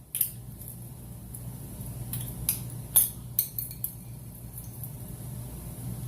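Several light clinks and clicks of hard objects being handled, most of them bunched between about two and four seconds in, over a steady low hum.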